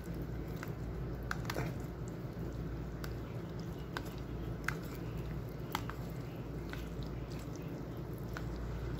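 White plastic fork stirring stringy, cheesy cauliflower mac and cheese in a plastic container: soft squishing with scattered faint clicks, over a steady low background hum.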